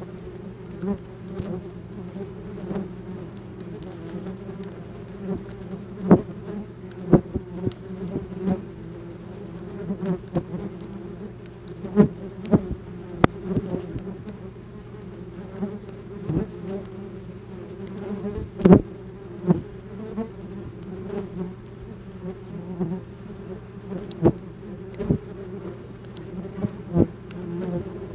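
Several wasps buzzing close to the microphone, with a steady low drone. Sharp ticks and knocks come at irregular intervals as wasps strike the camera in an attack near their nest, the loudest about two-thirds of the way in.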